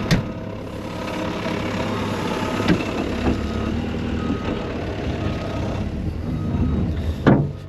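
Farm loader's engine running, with its reversing alarm beeping repeatedly as it backs up moving snow. A sharp knock near the end.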